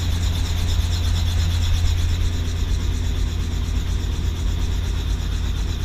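Robinson R44 helicopter running, heard from inside its doorless cabin: a steady low drone from engine and rotor with a fast, even beat from the blades, mixed with rushing air noise.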